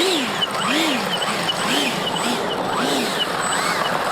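Electric ducted-fan motor of a Taft Hobbies Viper Jet RC model whining up and down in pitch about twice a second, as the throttle is blipped while the jet taxis.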